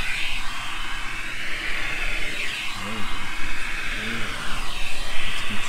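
Vacuum cleaner running through a hose with a brush nozzle, a steady airy hiss that wavers as the nozzle is drawn over a cat's fur.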